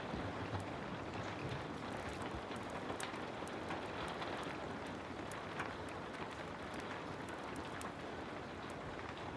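Heavy rain falling steadily, a constant hiss mixed with many scattered sharp crackles and ticks from a wood fire.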